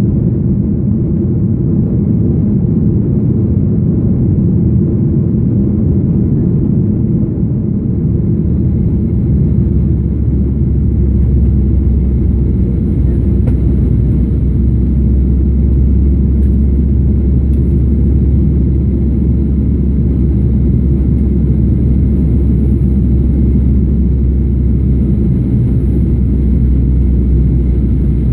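Cabin noise of a Boeing 737-800 climbing after takeoff, heard from a window seat: its CFM56-7B engines and the airflow make a steady loud low rumble. About ten seconds in, a deeper drone grows stronger and holds.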